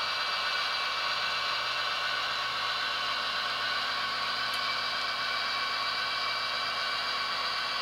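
Diesel engine sound from the ESU sound decoder of a Roco H0 TEE RAm 'Edelweiss' model railcar, played steadily through the model's small speaker. It sounds thin, with little low end, and a faint steady high whine runs through it.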